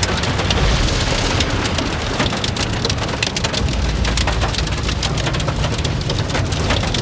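Heavy rain pelting a moving vehicle, heard from inside the cabin as a dense spatter of sharp hits on the roof and glass over the low rumble of the car on the road.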